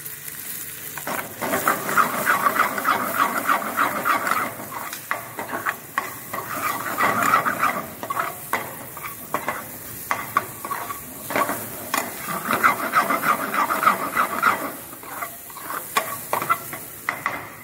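Steel ladle stirring and scraping vegetables and spices around a metal pan, clinking against its sides, in three brisk spells. The hot oil sizzles steadily underneath as the mixture is sautéed.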